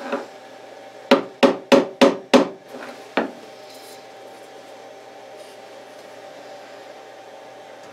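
Five quick sharp knocks, then a lighter one, as a tight-fitting CNC-cut laminate frame piece is whacked down into its slot. A faint steady hum follows.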